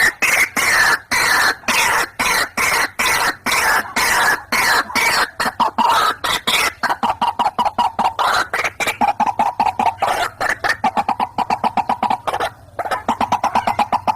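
White-breasted waterhen (ruak-ruak) calling: a fast, unbroken run of short harsh notes, several a second. Its pitch slides down over the first several seconds, then holds steady, with a brief break near the end.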